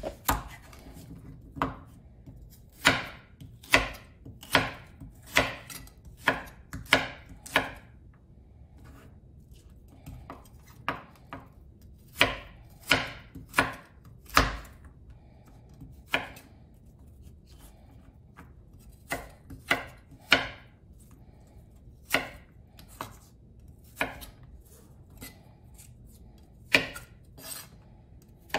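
Kitchen knife slicing a raw carrot on a bamboo cutting board: separate crisp knife strikes on the board, coming in runs of several cuts with short pauses between.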